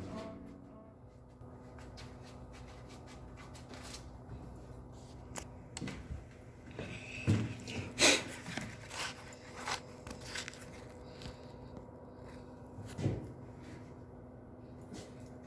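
Scattered light knocks and clanks, the loudest about halfway through, over a faint steady hum.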